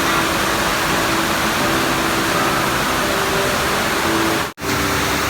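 Heavy rain falling, a steady rushing noise, which cuts out for an instant near the end.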